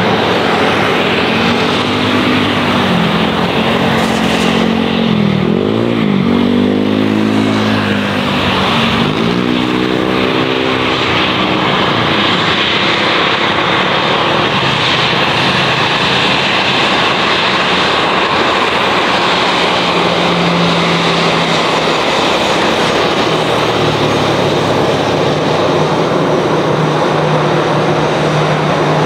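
Jet engines of an Airbus A320-family airliner, running loud and steady as it rolls along the runway. Between about three and eleven seconds in, a swooping, wavering tone rides on the roar as the aircraft moves past, and a low steady hum comes in near the end.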